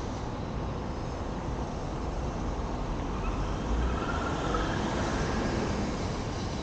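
Street traffic at an intersection: cars driving by over cobblestones over a steady low rumble, with one car passing close and loudest about four to five seconds in.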